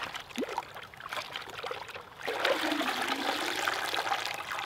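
Hot scalding water in a pot sloshing and splashing as a slaughtered chicken is dunked and shaken in it by the feet to loosen its feathers for plucking. It is quieter splashing at first, then louder from about two seconds in as the bird is swished and lifted out with water pouring off it.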